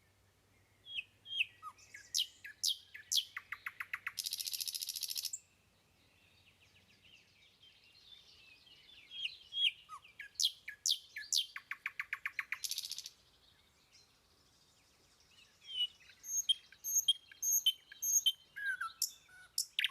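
A songbird singing three phrases of quick chirps and downslurred whistles. The first two phrases end in a fast buzzy trill.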